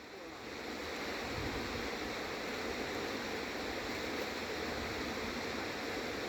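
Steady rushing background noise with no distinct events, swelling slightly over the first second and then holding even.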